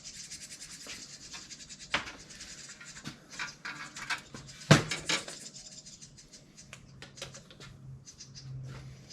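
Bicycle fender sheet metal being handled and scraped on the bench: rapid scratching at first, then scattered scrapes and clicks, with one sharp metallic knock about halfway through.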